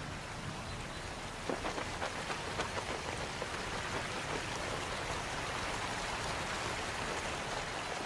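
Rain falling steadily, with a dense patter of individual drops striking a surface that becomes more distinct about a second and a half in.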